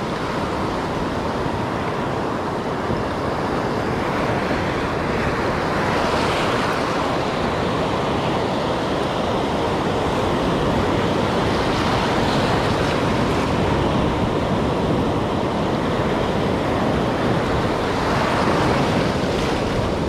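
Sea surf breaking and washing over shoreline rocks close by, a steady rushing wash that swells every several seconds.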